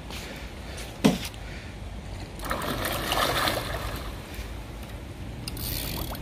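Water splashing and sloshing, loudest for about a second and a half in the middle. A single sharp knock comes about a second in.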